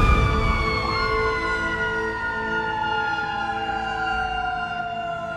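Fire truck siren with its wail falling steadily and slowly in pitch, joined about a second in by a second, higher steady tone. A low rumble under it fades early on.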